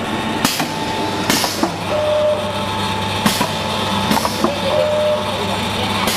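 Satay-sauce packaging machine running: a steady hum with clicks and short hisses that come roughly every one to two seconds as it cycles.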